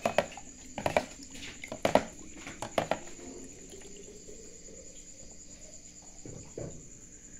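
A metal ladle knocks and scrapes against a plastic tub several times in the first three seconds as raw blood is scooped and poured into bowls, with softer handling sounds later. Crickets chirr steadily throughout.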